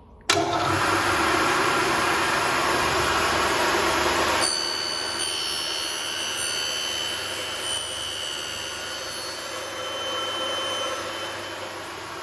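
Graule AKF6/250 end milling machine starting abruptly and running loud and noisy. About four and a half seconds in the sound changes: the low rumble drops and several steady high whining tones come in, fading somewhat near the end.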